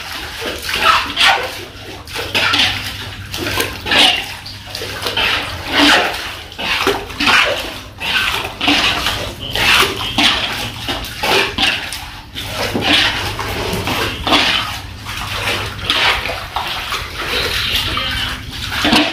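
Shallow floodwater being bailed off a floor: a plastic dipper repeatedly scoops and pours water into plastic buckets, giving splash after splash, about one or two a second. A steady low hum runs underneath.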